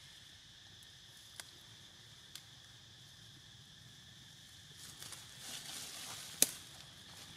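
Two faint clicks, then rustling and one loud sharp snap about six seconds in, over a steady high insect drone.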